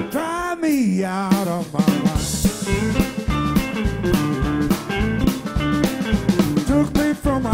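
Blues band playing live: an amplified harmonica plays bent, wavering notes through a cupped microphone over drum kit, bass, electric guitar and keyboard.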